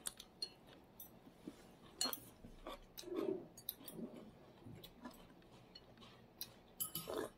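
Faint, scattered clicks and clinks of chopsticks and utensils against dishes at a meal, with a few soft low sounds in between.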